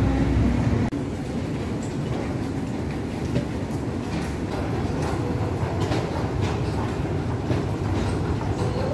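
Street traffic noise for about a second, then a sudden cut to the steady low rumble of an underground metro station concourse, with scattered clicks of footsteps on the hard floor.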